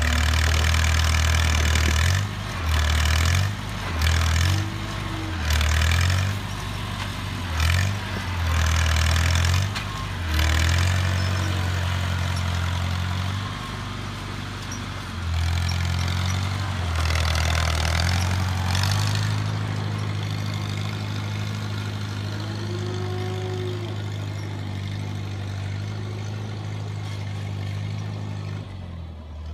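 1949 Farmall Cub's four-cylinder flathead engine working, its sound surging and dropping again and again for the first ten seconds or so, then running steadier. The tractor is working a front blade, pushing manure.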